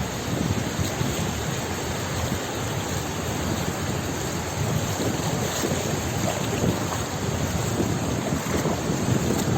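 Sea ambience: waves washing and wind blowing in a steady rush, with small surges.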